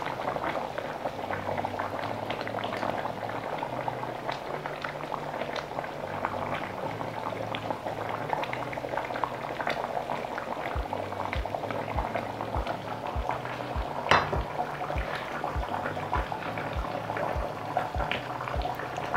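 Thick spicy fish curry bubbling at a steady boil in an open pot, a wash of small popping bubbles, with deeper low plops about twice a second joining in about halfway through. One sharp tick stands out a little after halfway.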